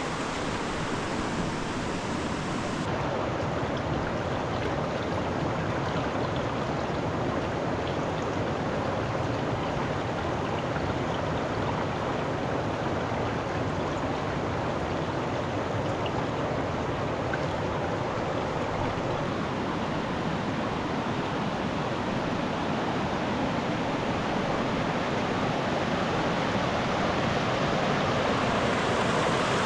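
A river flowing steadily, a continuous rushing of water.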